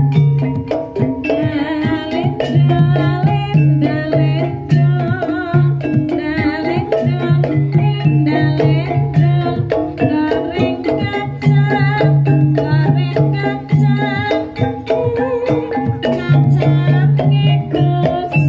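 Javanese ebeg music: hand drums and pitched percussion playing a steady rhythm over a low sustained tone, with a woman singing with vibrato over it.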